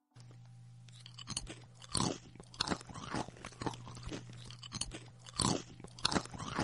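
Lay's potato chips crunching as they are bitten and chewed close to the microphone: a string of sharp, irregular crunches, the loudest about two seconds in and again about five and a half seconds in, over a steady low hum.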